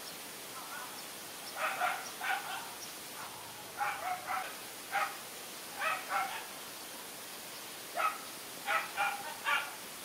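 Dog barking: about a dozen short, sharp barks in quick groups of one to three, with pauses between the groups.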